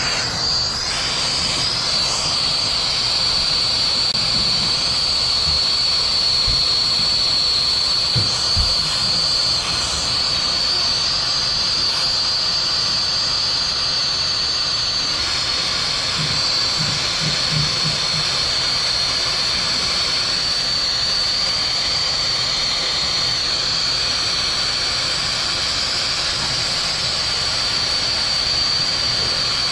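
Brazing torch burning steadily on a copper refrigerant line joint: a continuous hiss with a steady high whistle over it.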